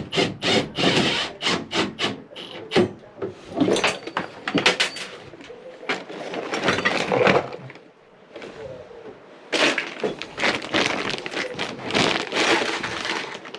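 Rapid, irregular knocking and clattering in two spells, with a lull about eight seconds in.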